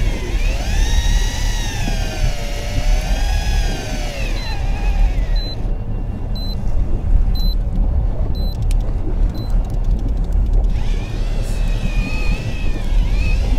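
Electric fishing reel's motor winding in line against a big fish, its whine slowly rising and falling with the load. About four seconds in the motor stops and the reel gives short high beeps about once a second for several seconds, then the whine starts again. The reel keeps stopping mid-retrieve, which the anglers take for a fault with the reel or its drag. A low rumble runs underneath.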